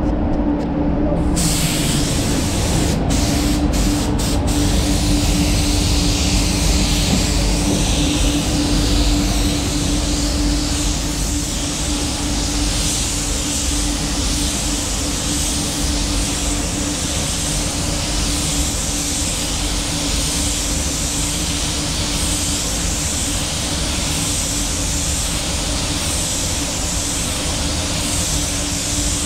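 Gravity-feed spray gun hissing steadily as compressed air atomises clear coat onto a car hood, starting about a second in, over a steady low hum.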